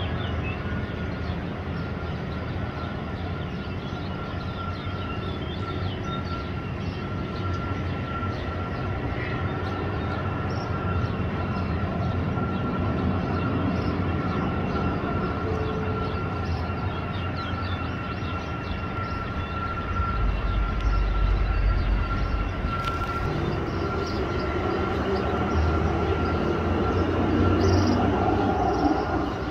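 Boeing KC-135R Stratotanker's four CFM56 (F108) turbofan engines at taxi power: a steady high whine over a broad rumble, getting louder about two-thirds of the way through.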